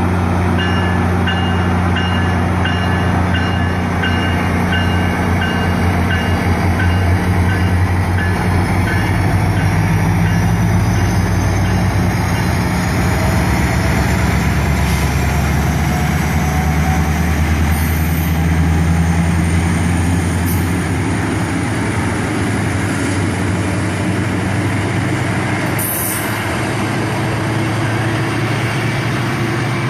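MARC commuter train departing, its locomotive giving a heavy steady rumble. A ringing warning signal sounds about one and a half times a second for the first ten seconds, then a whine climbs steadily in pitch as the train gathers speed.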